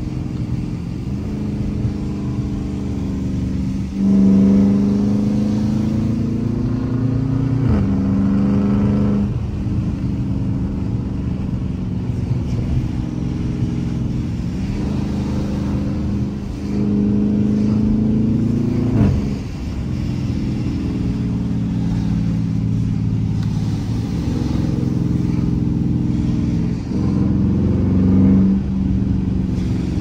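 Dodge Charger R/T's 5.7-litre HEMI V8 in track mode, heard from inside the cabin while accelerating. Its note climbs and then drops back at each upshift, several times over, with the strongest pull about four seconds in.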